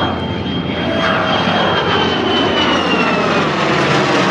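An F-35A jet and a P-51 Mustang flying a close formation pass overhead: a loud, steady aircraft engine noise with a high whine that slowly falls in pitch as they go by.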